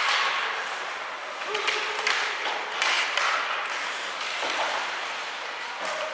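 Ice hockey rink ambience during play: a steady din of the arena with a few sharp clacks and knocks from the ice.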